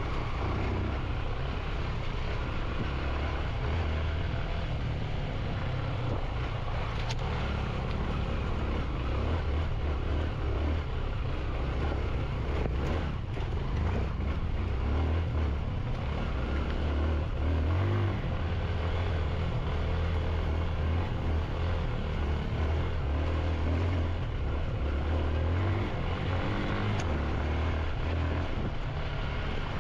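Motorcycle engine running under way, a steady low rumble with a constant rushing noise over it.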